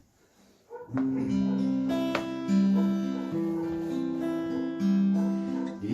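Instrumental introduction to a hymn: after a brief hush, chords start about a second in and change every second or so, with notes held steady.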